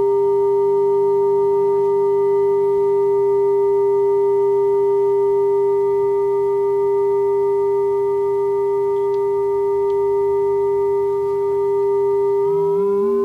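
Electronic sine tone from a tone generator, run through a multi-effects pedal: one steady pure pitch with several fainter added tones above and below it, which the effect produces. About a second before the end the added tones slide upward in pitch as the effect changes, while the main tone holds.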